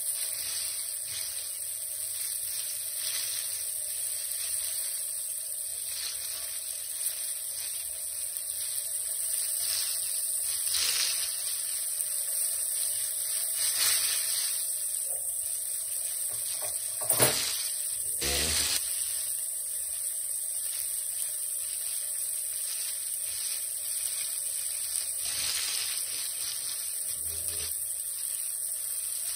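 Flour-coated Black Sea gobies frying in hot oil in a frying pan: a steady sizzle with light crackles, broken once about seventeen seconds in by a sharp knock.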